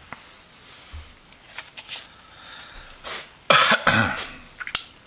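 Brass Zippo lighter being lit after a fresh fill of fluid. A few light metal clicks are followed, about three and a half seconds in, by a loud rasping strike of about half a second, then a sharp click.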